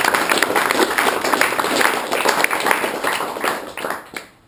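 A small audience of about thirty people applauding with many irregular hand claps, dying away about four seconds in.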